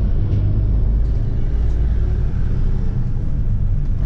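Vintage bus on the move, heard from inside: a steady low engine rumble with road noise.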